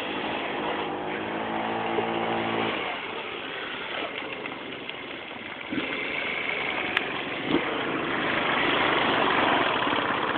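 Jonway scooter's GY6 150cc four-stroke single-cylinder engine running and accelerating, its pitch steady for a couple of seconds about a second in, with a few short knocks in the middle and growing louder near the end.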